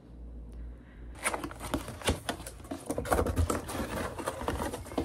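A cardboard rice-cooker box being opened and handled: a dense run of rustling, scraping and tapping of cardboard flaps and packing, starting about a second in after a faint low hum.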